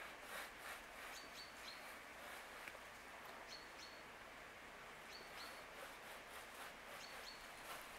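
Faint outdoor ambience with a small bird's short, high chirps, often in quick pairs, repeating every second or two.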